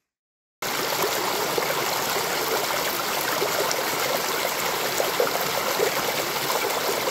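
Rain-swollen burn (small stream) rushing and splashing over stones, a steady loud rush that starts suddenly about half a second in after silence.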